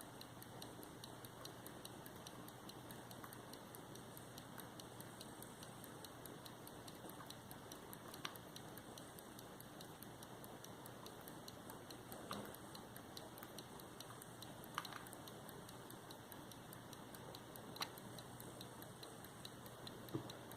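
Faint, fast, even ticking of an English verge fusee pocket watch by Edward East, circa 1695, with a few louder single clicks from handling while the hands are set with the key.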